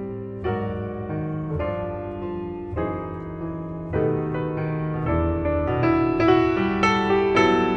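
Instrumental piano music playing as a soundtrack, a slow melody over chords, with new notes starting about once a second.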